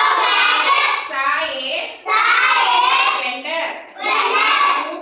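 A class of young children reading aloud together in a sing-song chant, in three phrases of a second or two each.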